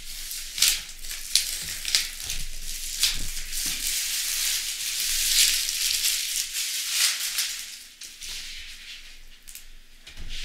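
Plastic shrink wrap crinkling and crackling as it is pulled and torn off a board game box, with a few sharp snaps in the first seconds and quieter over the last couple of seconds.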